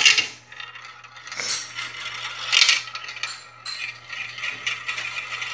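Marbles rolling and rattling through a plastic marble run's tracks and funnels, a busy clatter of clicks with louder bursts at the start and again about two and a half seconds in.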